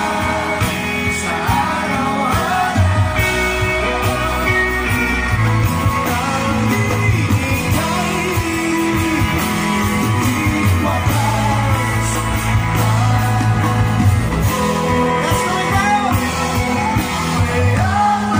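Live band performing a song: singing over acoustic guitars, bass and drums.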